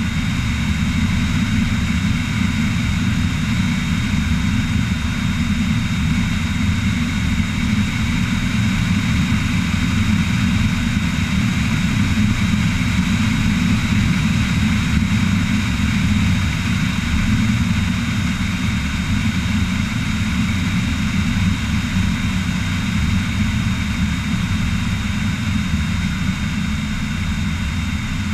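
Cessna 172XP's six-cylinder Continental IO-360 engine and propeller running steadily in flight, a constant low drone heard from outside under the wing.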